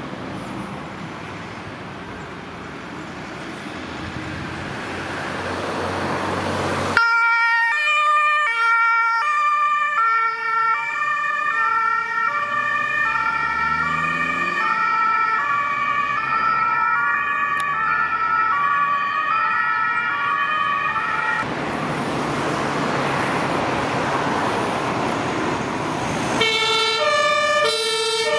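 Road vehicle noise growing louder, then a German two-tone fire-brigade siren (Martinshorn) switching back and forth between a high and a low note. About two-thirds of the way through the siren gives way to a rush of passing-vehicle noise, and near the end the two-tone siren starts again.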